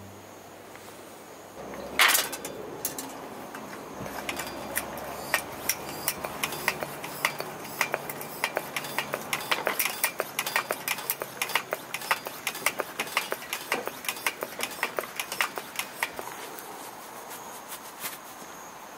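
Quick, irregular metal clicks and clinks from hands working a vintage 1965 Sears (Coleman-made) pressure lantern on a wooden table, after a single knock about two seconds in; the clicking thins out near the end.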